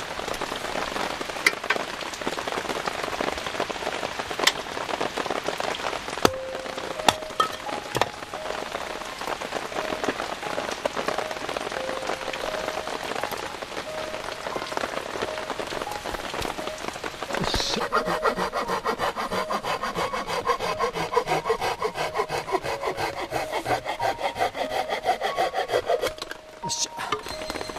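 A freshly lit wood fire of split kindling crackling, with sharp pops and knocks as sticks are laid on it. About two-thirds of the way through, a fast, even pulsing sound with a slowly falling pitch comes in over it and stops shortly before the end.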